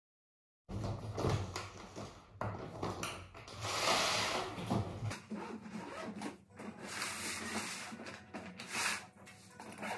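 Rubbing and scraping with scattered knocks as a hard-shell suitcase is handled and opened on the floor, starting about a second in.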